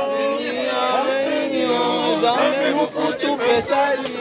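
A group of men's voices singing a cappella in unison, holding long notes, with talking voices mixing in from about two seconds in.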